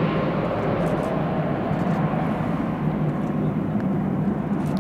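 Boeing 757 jet engines (Rolls-Royce RB211 turbofans) running at low approach power as the airliner descends on short final and flares over the runway: a steady, even jet noise, heaviest in the low range.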